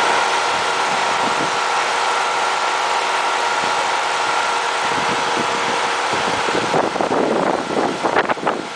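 Air conditioner running with the weird noise it makes when switched on: a steady hum carrying several constant whining tones. About seven seconds in, the steady sound gives way to irregular crackling bursts.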